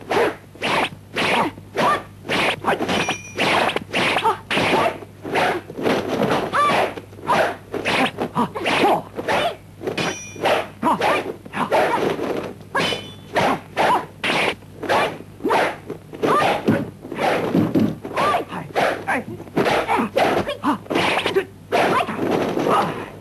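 Kung fu film fight sound effects: a fast, unbroken run of sharp punch and kick smacks, about two a second.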